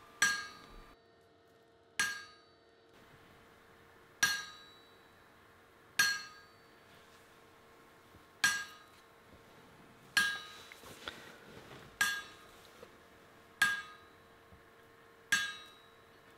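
Hammer blows struck on a set hammer held on a hot wrought-iron collar, about one every two seconds, nine in all, each a sharp metallic clang with a short ring. The set hammer is evening out the thickness of the collar.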